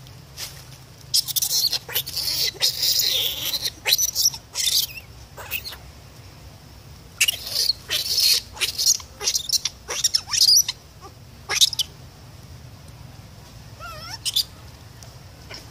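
Infant long-tailed macaque screaming in shrill bursts, in two bouts a few seconds long, then a few soft rising-and-falling calls near the end. These are the distress cries of a baby macaque wanting its mother's care.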